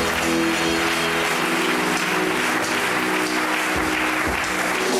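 Audience applauding, with instrumental music playing held notes underneath.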